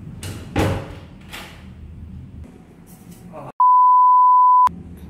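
A hinged door swinging shut with a thud about half a second in, with a few lighter knocks around it. Then, past the middle, a loud steady one-tone censor bleep lasts about a second, with the rest of the sound cut out beneath it.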